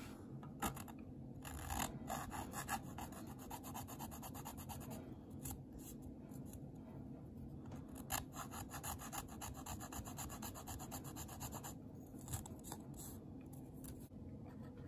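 Needle file rasping along the edge of a plastic HO-scale boxcar underframe in many quick short strokes, quiet, smoothing down the spots where moulded plastic bits were trimmed off.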